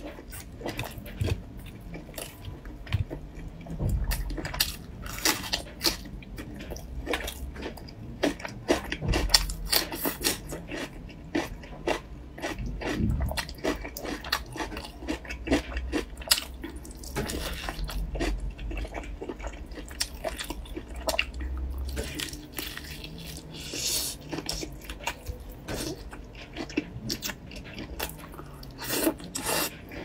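Close-up mouth sounds of eating: biting into and chewing a braised chicken drumstick, with many irregular smacks and clicks.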